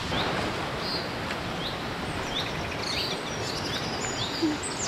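Forest birds chirping, many short high calls scattered over a steady noisy background, with a single brief thud near the end.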